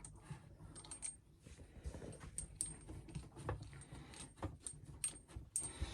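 Light clicks, clinks and rustling of tap hoses and their metal fittings being handled and fed through a hole in the benchtop, in a scattered irregular pattern.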